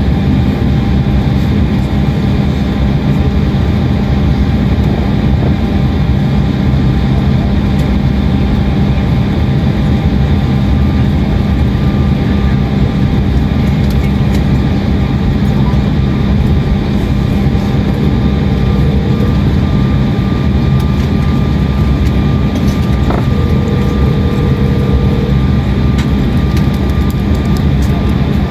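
Steady cabin noise inside an Embraer E175LR regional jet during pushback from the gate: a constant rush of air with a steady low hum and a few faint held tones.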